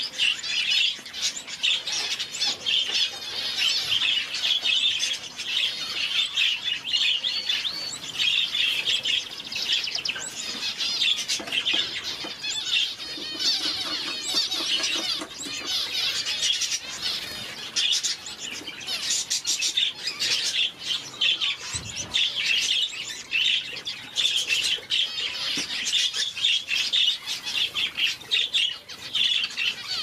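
Small finches chirping and calling in a dense, continuous chorus of many overlapping short high calls, as in a busy aviary.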